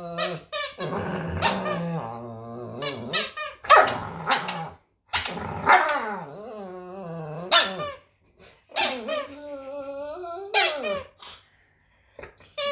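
Dogs playing over a plush toy: drawn-out whining growls that waver up and down in pitch, broken by many short, sharp barks.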